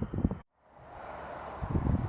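Wind buffeting the microphone in gusts, cutting out abruptly about half a second in and giving way to a steady hiss before the buffeting returns near the end.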